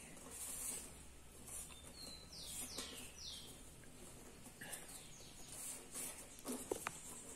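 Soft rustling and scraping of thin weaving tubes being bent and pushed through a basket-weave border by hand. A small bird chirps outside, three short falling chirps in quick succession about two and a half seconds in.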